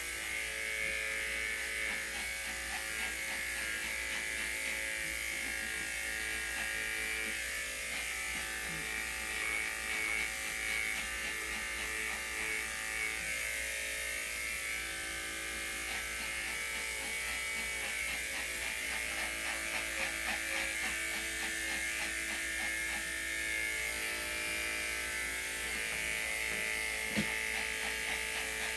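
Electric dog grooming clippers running steadily as they shave through a dog's thick coat. One brief sharp click near the end.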